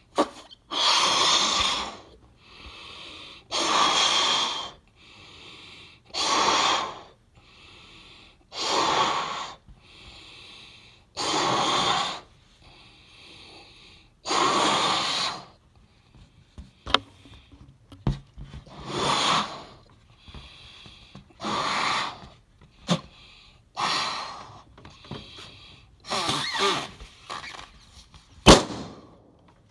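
A balloon being blown up by mouth: about ten hard breaths blown into it, each a second or so long, with weaker breaths between, until the balloon bursts with one sharp pop near the end.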